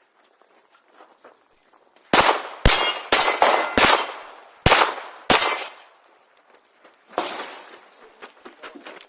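A string of about seven pistol shots fired at steel plates, the hits ringing with a high metallic clang. After about two quiet seconds the shots come quickly at first, then slow, and one softer report follows near the end.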